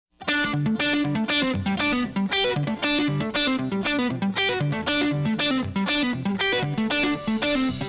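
Background music led by an electric guitar, starting suddenly just after the opening silence, with notes picked or strummed in a steady rhythm of about two a second over a pulsing bass line.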